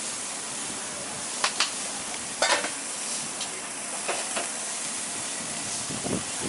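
Steady sizzling of food frying on a hot griddle, with a few short clicks and taps now and then.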